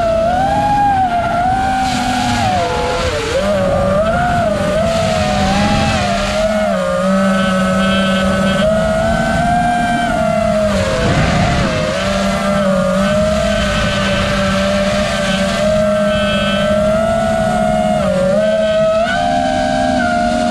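Racing quadcopter's four brushless motors (Turnigy 2205 2300 KV) spinning 5-inch three-blade propellers, heard from the onboard camera: a steady buzzing whine whose pitch rises and falls irregularly as the throttle changes, over a low rushing noise.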